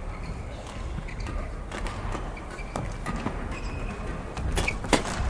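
Badminton rally in a doubles match: irregular sharp pops of rackets striking the shuttlecock, with brief squeaks of shoes on the court, the hardest hit about five seconds in.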